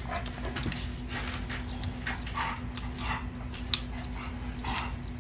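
A three-week-old Rottweiler puppy eating soft puppy mush from a stainless steel saucer, with irregular wet lapping and smacking.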